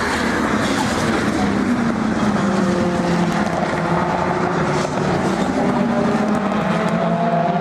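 WTCC touring cars' 1.6-litre turbocharged four-cylinder engines running hard as the cars race past, their engine note climbing slowly as they accelerate.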